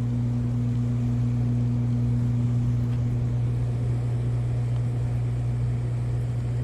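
A steady low droning hum with a higher overtone above it, over a faint even hiss, unchanging throughout.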